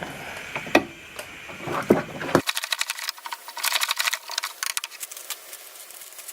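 Handling of home-brewing gear while malt extract is mixed into hot water: a few separate knocks, then a quick run of clicks and rattling for a few seconds.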